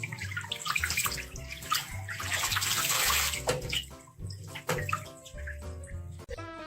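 Running water splashing, as from a tap into a tub, for the first half, stopping about three and a half seconds in; background music with a pulsing bass plays throughout.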